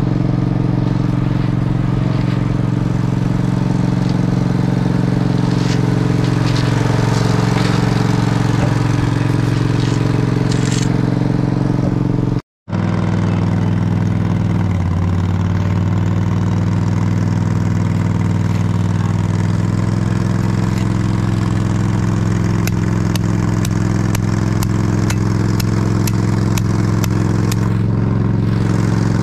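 Diesel engine of heavy paving equipment running steadily under load while millings are laid, with a short break about twelve seconds in and a light, even ticking about twice a second in the last several seconds.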